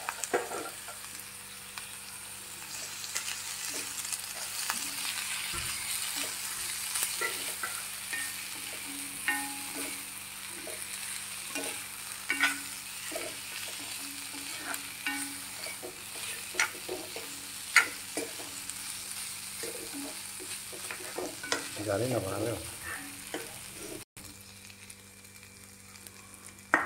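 Drumstick (sajana) stalks sizzling as they fry in oil in a granite-coated wok, while a spatula stirs them, with many sharp clicks and scrapes against the pan.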